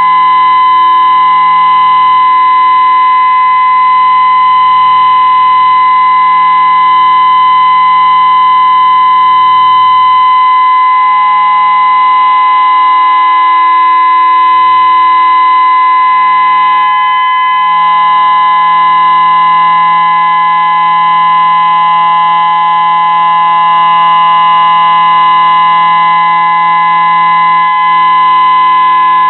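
Whelen 2016 electronic outdoor warning siren sounding a loud, steady tone of unchanging pitch during its scheduled test.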